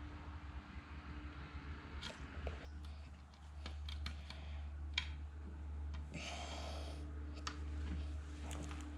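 Scattered small clicks and taps of parts being handled and fitted, with a brief scraping rustle about two-thirds of the way through, over a steady low hum.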